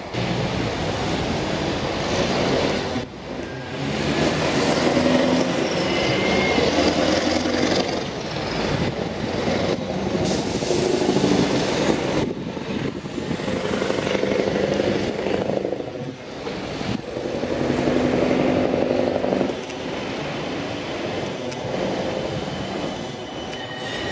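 Auckland AM class electric multiple-unit train running in along the platform and slowing to a stop. A brief rising whine comes about six seconds in, and a high squeal of wheels or brakes begins near the end.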